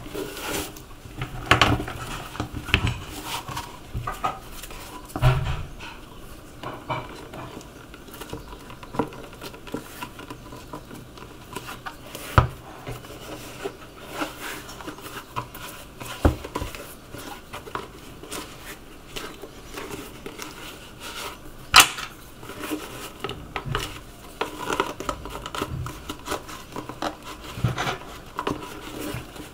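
Scattered knocks, clicks and clinks of tools and a shoe being handled at a cobbler's bench, with a few sharper knocks standing out, the loudest about twenty-two seconds in.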